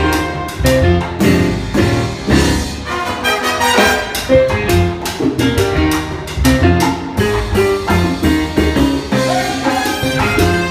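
Live salsa band playing an instrumental passage: trombones and saxophone over timbales, congas and keyboard, with a steady driving rhythm.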